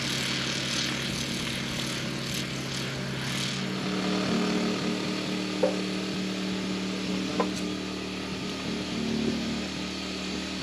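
An engine running steadily; its pitch steps up about four seconds in, with a couple of light knocks.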